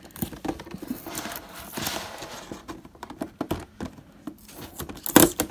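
Fingernails picking and scratching at a seal sticker on a thin clear plastic box, with small clicks and crinkles of the plastic. There is a longer scraping stretch about a second in as the sticker peels, and sharper taps near the end.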